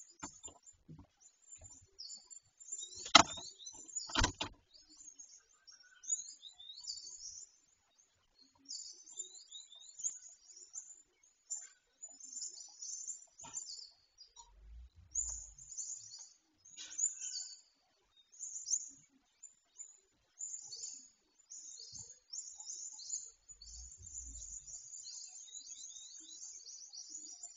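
Small birds chirping and twittering throughout, in quick high calls, with two sharp knocks about three and four seconds in that are the loudest sounds.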